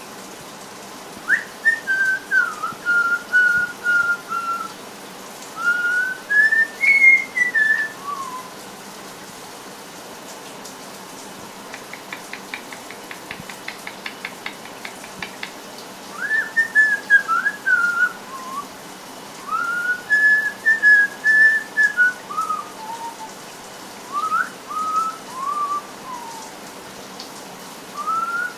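White-bellied caique whistling a tune in short sliding notes, in several phrases with pauses between them. A faint rapid chatter fills the middle pause.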